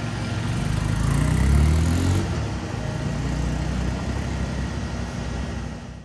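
A vehicle engine revving up, its pitch rising for about a second and a half, then running steadily. It cuts off abruptly at the end.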